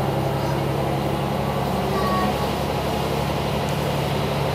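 AN8800-series diesel railcar engines running with a steady pitched drone, heard from inside a railcar as the other railcar pulls out and passes close alongside.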